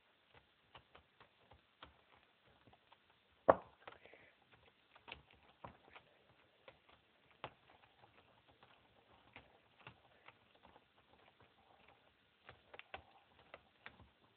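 Scattered light clicks and ticks of a screwdriver and small plastic and metal parts being handled as the wheel hub of a 1/10 RC buggy is screwed back together, with one louder knock about three and a half seconds in.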